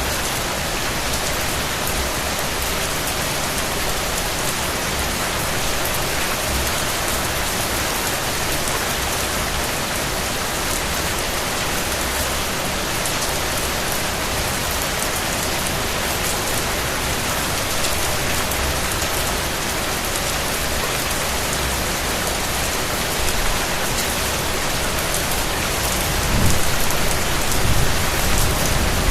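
Steady rain falling: a dense, even hiss with fine ticks of individual drops. A low rumble swells in near the end.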